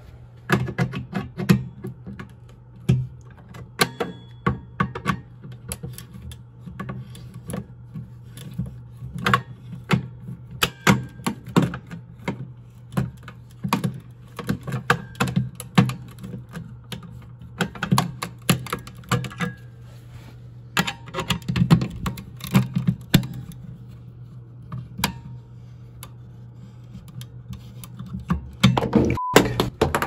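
Many irregular clicks and taps of a fold-out hex key working the reset screw of a Siemens manual fire alarm pull station, a reset that has to be screwed round rather than given one turn. A steady low hum runs underneath.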